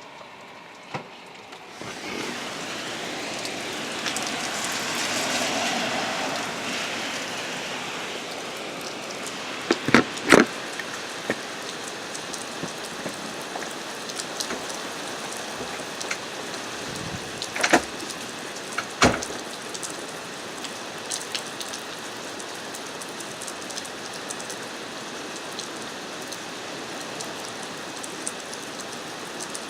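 Heavy rain pouring down and pattering on surfaces, coming in strongly about two seconds in and swelling louder for a few seconds. A handful of sharp knocks stand out over it.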